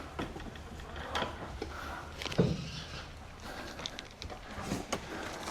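A few faint knocks and rattles, about a second apart, from a barn door being pulled shut and latched, over a steady low rumble.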